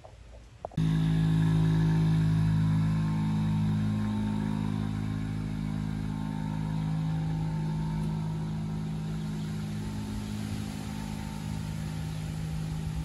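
Honda Motocompo scooter's small two-stroke single-cylinder engine running steadily, cutting in abruptly about a second in and holding an even pitch.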